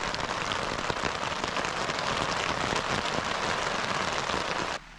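Rain falling steadily on and around a bush survival shelter, a dense patter of many drops that stops suddenly near the end.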